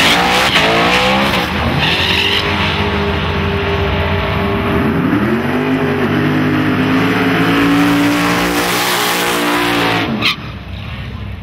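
Drag race launch: a V8-powered Fox-body Mustang accelerates hard off the line, its engine note climbing, dropping back at each gear change and climbing again, then holding as the car runs down the strip. The sound cuts off suddenly about ten seconds in.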